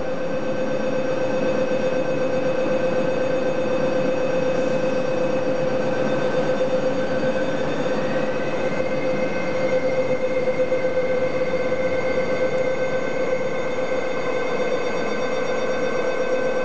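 Electric commuter train pulling out of the platform: a steady multi-tone whine over rolling wheel noise, with one tone rising in pitch about eight seconds in.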